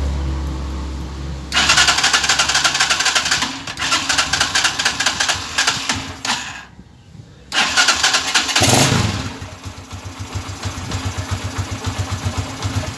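Euro 150 motorcycle's single-cylinder engine being cranked on its electric starter in two long attempts, with a short pause about six seconds in, then running with a steady pulsing beat near the end. It is hard starting even after a valve clearance adjustment, which the mechanic puts down to a dirty carburetor and air cleaner.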